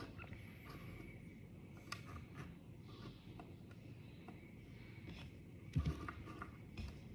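Quiet room tone with a few faint clicks. A soft handling bump about six seconds in, as the handheld phone shifts.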